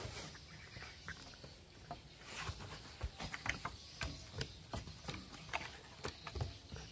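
A dog's claws tapping and scrabbling irregularly on loose wooden deck boards as it bows and shuffles about, the clicks coming thickest in the second half.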